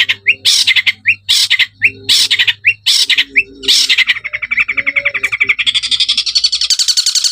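Long-tailed shrike (cendet) giving repeated harsh, rasping squawks mixed with short rising chirps. About four seconds in, it switches to a fast, continuous chattering trill that grows louder toward the end. This is the kind of call used as a lure to get other cendets singing.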